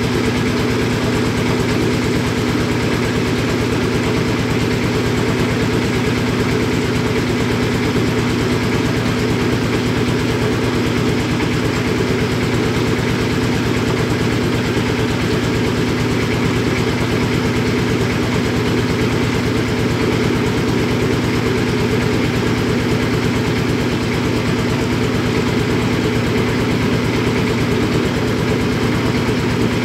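A small river tour boat's engine running steadily while the boat cruises along, a constant low engine note with an even fast pulse and no change in level.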